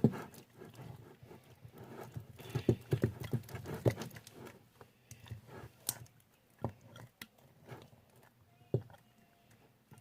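Sticky homemade glue slime being squished and worked by hand, making irregular soft wet clicks and pops. The clicks come thickest in the first half, with a sharper snap about six seconds in.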